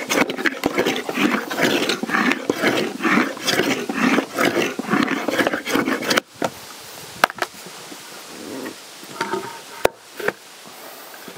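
Rapid, irregular rasping strokes of a hand tool cutting into oak wood, stopping abruptly about six seconds in. A few sharp knocks follow.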